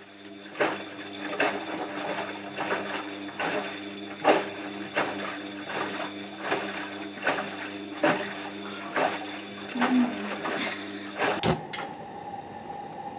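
Front-loading washing machine running, its drum turning with a steady hum and a regular knock a little more than once a second. A sharp click comes near the end, after which a steadier, higher hum carries on.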